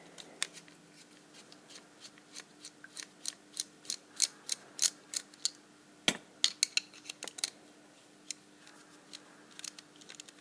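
Short sharp metal clicks, about three a second, as a screwdriver works at a Loctite-held screw in an Abus 72/40 padlock, breaking it loose.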